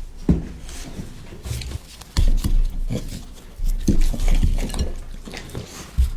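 A puppy eating raw meat from a bowl: wet chewing with irregular clicks and knocks of the bowl.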